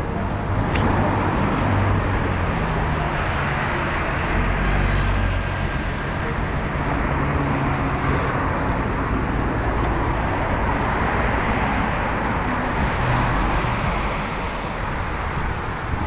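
Steady rush of wind on the microphone from a moving bicycle, mixed with the hiss of car traffic driving on a wet road; the noise eases a little near the end.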